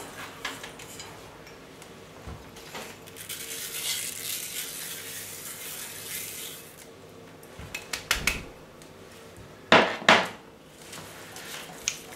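Dry rice poured from a cup into a frying pan of onion cooking in oil, a hissing rustle for a few seconds, then a wooden spoon stirring and knocking against the pan, loudest twice near the end.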